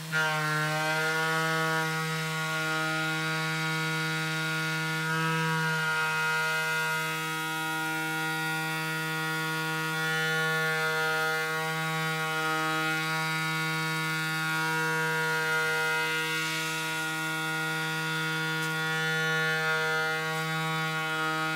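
Tormach 440 CNC mill cutting aluminum with a 3/4-inch Shearhog cutter at 10,000 RPM on an adaptive toolpath. It gives a steady, ringing tone at the spindle speed, with many overtones.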